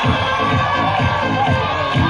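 Playback dance music with a fast, steady heavy beat, switching in at the start, with the audience cheering and children shouting over it.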